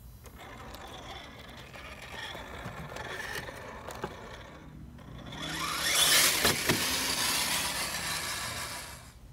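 Hobbywing AXE brushless motor and drivetrain of a Redcat Gen8 Scout RC crawler whining softly as the truck crawls over rock and gravel. About halfway through it gets louder: the truck drives over dry grass and pine needles with the rustle of the tyres and a motor whine that rises and falls in pitch.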